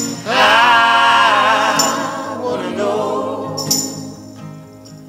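Background song: a male lead voice sings a long wavering line over backing choir vocals, with a tambourine accent about every two seconds. The music fades toward the end.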